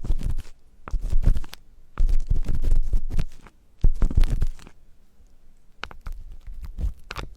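Close-miked ASMR ear-cleaning sounds: rough scratching and rubbing right on the microphone in four heavy bursts, then lighter scattered scrapes and taps near the end.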